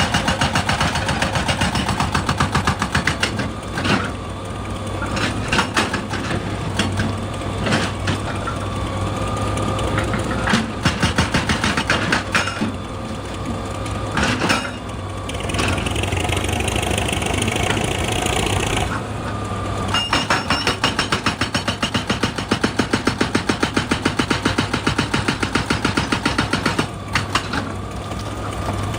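Excavator at work on rock: its engine running steadily under a fast, even series of hammering impacts. The impacts come in spells, with a long steady run near the end.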